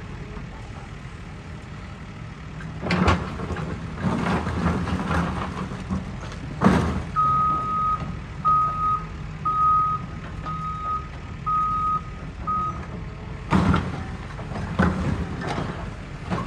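Demolition excavator's diesel engine running under a series of heavy crashes as concrete and brick rubble is broken and dropped. A reversing alarm beeps six times, about once a second, midway through.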